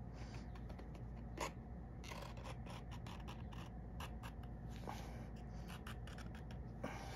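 Knife paring a strip of leather: a run of short, irregular scraping cuts, with a sharper click about a second and a half in.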